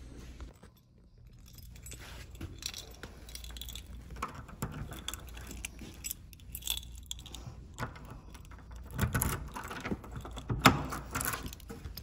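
Keys jangling and clicking as a door's metal lever handle is worked and the door is opened, with a few louder knocks near the end.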